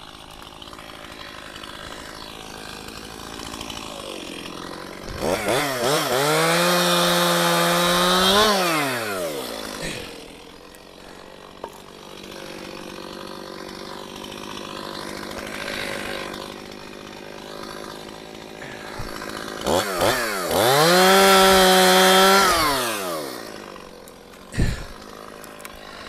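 Chainsaw idling, then revved to full throttle twice for about three seconds each while cutting through maple branches, the pitch sweeping up, holding high and dropping back to idle. A short thump near the end.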